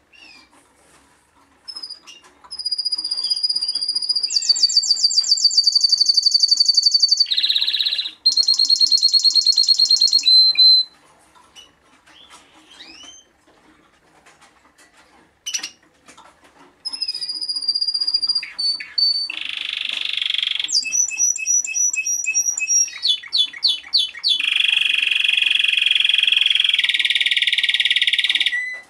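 Male Timbrado Español song canary singing: long held whistled notes and fast rattling trills, in two bouts with a pause of several seconds between them filled by a few short calls.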